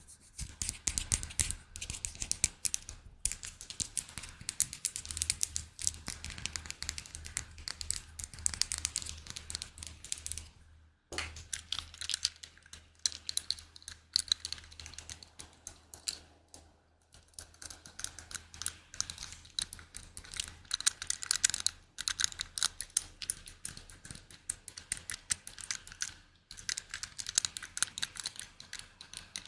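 Rapid, light tapping: dense flurries of crisp clicks, made as an ASMR trigger, with brief pauses every several seconds.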